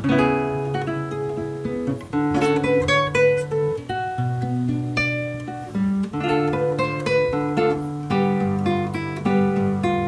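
Solo classical guitar played fingerstyle: a plucked melody over held bass notes.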